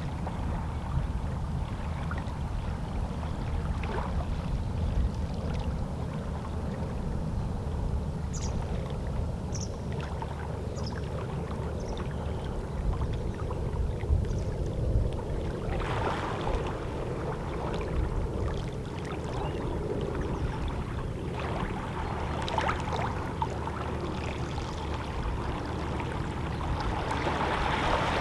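Small waves on a calm sea lapping and splashing against shoreline rocks, with a few louder splashes. A few short, high seabird calls come about a third of the way in.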